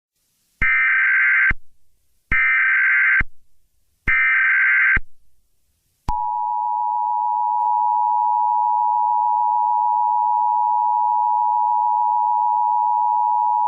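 Emergency Alert System tones: three short, identical screeching SAME header data bursts, each just under a second long, followed about six seconds in by the steady two-tone EAS attention signal. Together they mark the start of an emergency alert, here a civil danger warning.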